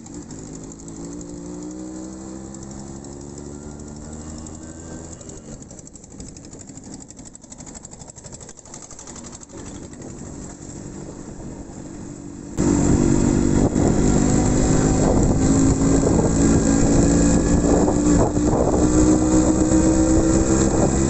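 Yamaha RX 100's two-stroke single-cylinder engine running under way, its pitch rising slowly as the bike gathers speed. About twelve seconds in, the sound jumps suddenly much louder and noisier, the engine still climbing gently in pitch.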